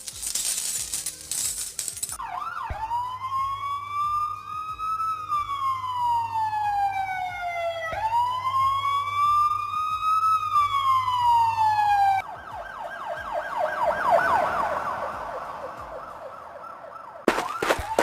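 Police siren wailing, rising and falling slowly twice, after a couple of seconds of noisy clatter. It gives way to a faster, hissy warble, and a rhythmic clicking beat starts near the end.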